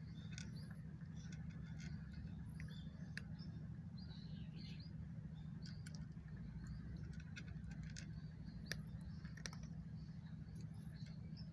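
A cat eating, with irregular small clicks and smacks of chewing and licking over a steady low hum.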